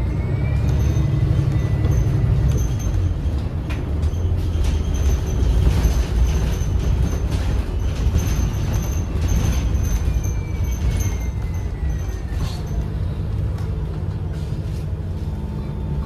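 Interior of a 2013 New Flyer XDE40 diesel-electric hybrid bus under way: a steady low rumble of the drivetrain and road. A high whine falls in pitch from about ten seconds in, as the bus slows, and the sound settles to a steadier hum near the end.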